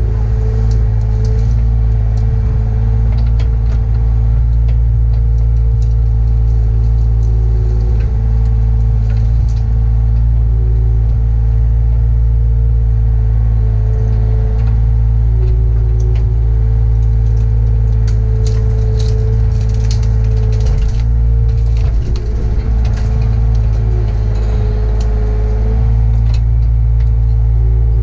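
Mini excavator's diesel engine running steadily under load, heard from inside the closed cab, with a hydraulic whine that wavers in pitch as the boom and bucket move. A few light clicks and cracks come through, mostly past the middle.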